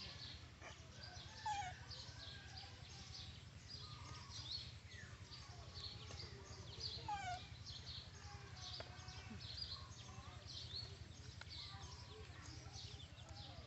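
Many birds chirping steadily in the background, with a few lower falling calls among them, over a low steady hum.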